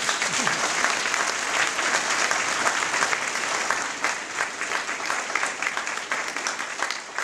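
A group of people applauding, many hands clapping together in a steady, dense patter that eases slightly near the end.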